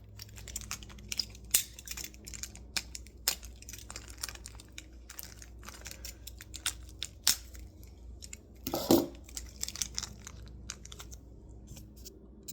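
Hands handling small plastic toy figures, their stands and plastic packaging: scattered small clicks and crinkling rustles, with one louder, longer noise about nine seconds in.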